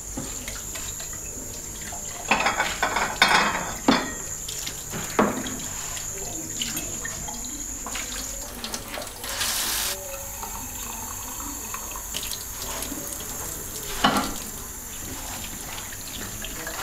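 Washing up at a kitchen sink: water running from the tap, with dishes clattering in short bursts, the loudest a couple of seconds in and again near the end.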